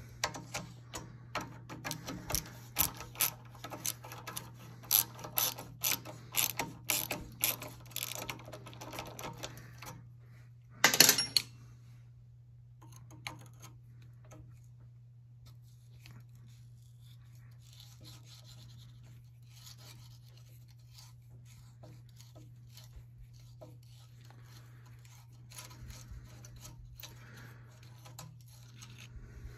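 Hand tools and metal fittings on the old motorcycle's front end clicking and clinking as parts are worked loose: a run of sharp clicks, two or three a second, for about ten seconds, then one louder clank about eleven seconds in. After that come faint scattered handling sounds over a steady low hum.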